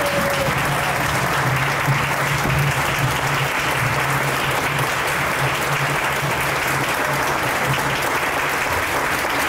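A large audience applauding steadily in a standing ovation, an even clapping that holds without a break.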